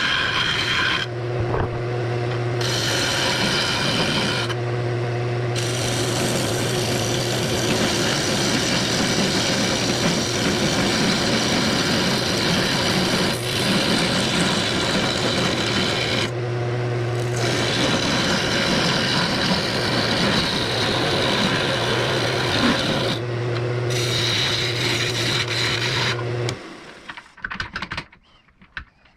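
Wood lathe spinning a 4x4 block while a turning tool cuts it, a continuous rough shaving noise. Four times the cut breaks off briefly, leaving only the lathe motor's steady hum. The sound stops near the end.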